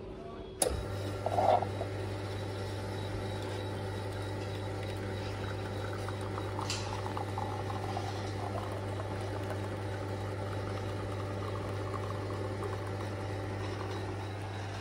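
Franke A1000 bean-to-cup coffee machine brewing: it starts up abruptly about half a second in, then runs with a steady mechanical hum while coffee streams from the spout into a porcelain cup.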